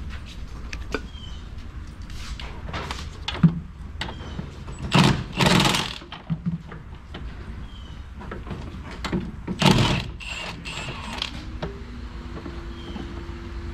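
Hand tools clinking and rattling on metal in short, irregular clatters, loudest about five and ten seconds in, as a 13 mm nut is worked off the top mount of a rear strut; a low steady hum runs underneath.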